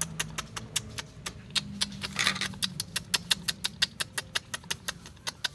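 Rapid, even ticking, about six clicks a second, over a low hum, with a brief rustling hiss about two seconds in.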